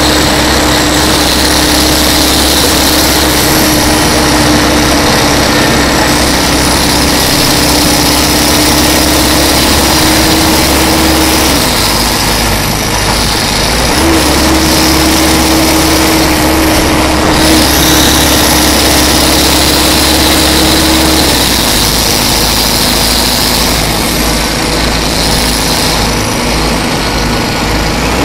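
Detroit Diesel Series 50 diesel engine of a TMC RTS-06 transit bus running steadily. A steady hum over the engine drops out about twelve seconds in, comes back two seconds later, and stops again about twenty-one seconds in. Faint high whines rise and fall over the engine sound.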